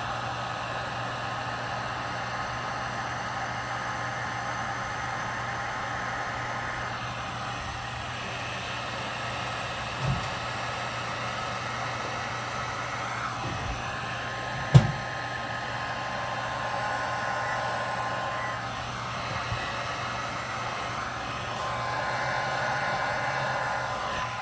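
Electric heat gun running steadily, blowing hot air to shrink heat-shrink tubing over a speaker cable termination. A sharp knock sounds about fifteen seconds in, with a smaller one about ten seconds in.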